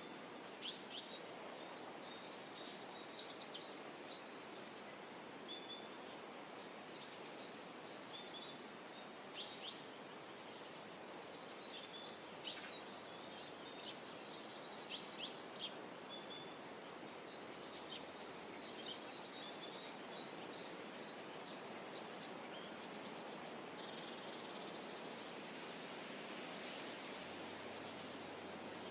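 Small songbirds chirping and singing in short high phrases, on and off, over a steady outdoor background hiss. The loudest burst of song comes about three seconds in.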